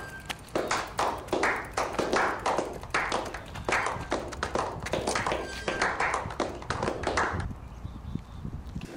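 A quick, irregular run of sharp taps, about three a second, over a low steady rumble; the taps stop about seven seconds in.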